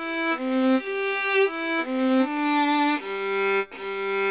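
Violin playing a simple melody smoothly in tune: a run of short bowed notes, then two longer held notes toward the end.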